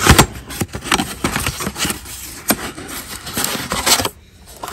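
Cardboard box of a new spin-on oil filter being opened by hand: the flaps are pulled and torn open and the filter slid out, a string of scrapes, crackles and knocks, loudest near the start.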